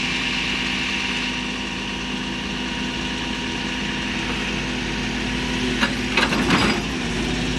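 Excavator engine running steadily at idle, with a short cluster of irregular clanks and knocks near the end.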